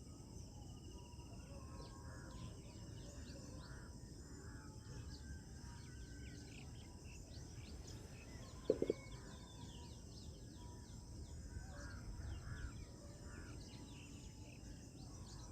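Low outdoor background of small birds chirping over a steady high insect drone. One brief louder sound with two quick peaks comes a little before the middle.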